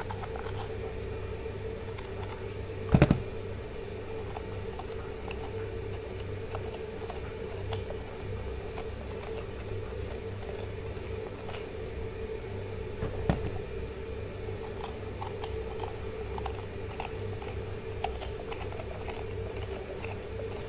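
Zucchini being cored out by hand: faint scraping and small clicks over a steady hum. Two sharp knocks stand out, one about three seconds in and a smaller one about thirteen seconds in.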